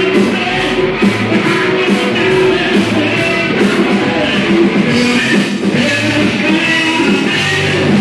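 Live rock band playing loud: distorted electric guitar over a drum kit, with a steady cymbal beat.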